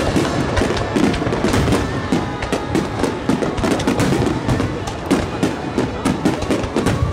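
Fireworks shells bursting in a rapid barrage: a dense, continuous run of bangs and crackles following each other many times a second.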